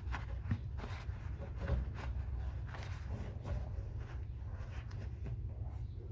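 Irregular light scrapes and clicks of hand cleaning the threaded relief-valve port on a water heater, over a steady low hum.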